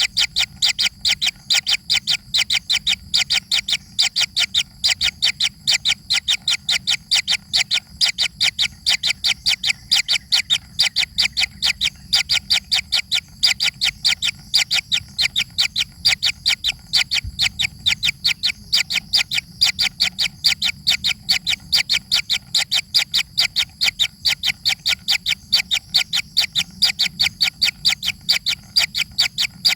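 Baby bird chirping in a fast, steady series of short calls, about five a second.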